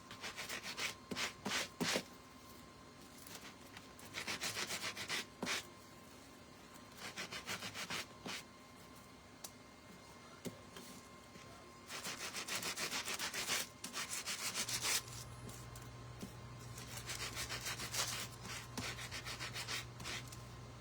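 Hand sanding a craft piece to distress its paint: quick, even back-and-forth rubbing strokes in about five short bursts, with pauses between.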